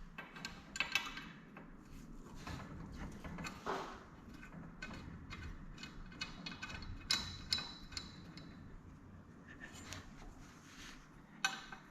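Wrench working a bolt on garage door torsion spring hardware: irregular metallic clicks and clinks, with a brief ringing clink about seven seconds in.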